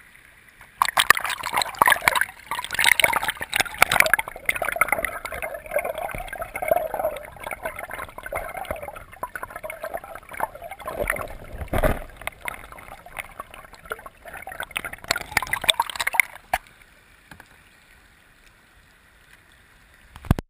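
River water gurgling and splashing against a GoPro's waterproof housing as the camera is held at and under the surface of fast current, with many small knocks and one heavier thump about two-thirds of the way through. The water sound drops to a faint hiss for the last few seconds.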